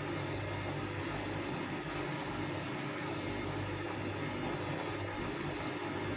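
Vestel CM8710 front-loading washing machine running on its wool/hand-wash cycle: a steady motor hum with an even whirring noise and no change in pace.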